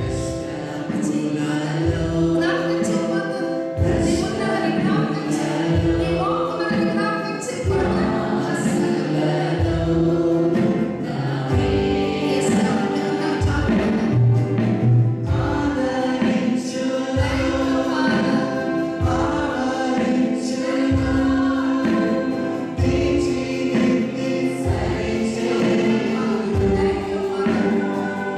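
A congregation or choir singing a worship song in unison, with band accompaniment and a steady bass beat.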